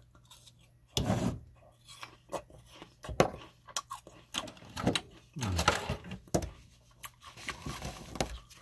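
Close-miked chewing of a forkful of food: irregular crunches, wet mouth clicks and smacks, with one of the louder bites about a second in.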